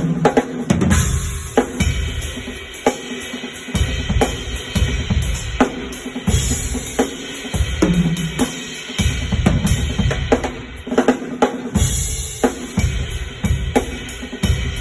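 Drum kit played live at a sound check: kick and snare in a steady groove, with cymbal crashes about a second in, around six seconds and near twelve seconds.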